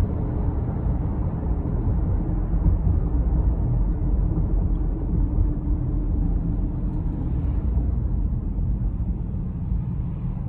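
Steady low rumble of a car driving, heard from inside the cabin: engine and road noise while cruising along.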